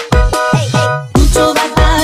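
Upbeat pop song with a strong bass-and-drum beat and a melody line over it.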